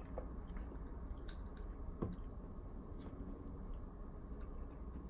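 A drinking glass set down on a table with a soft thump about two seconds in, amid faint scattered mouth clicks and small sounds of swallowing and eating.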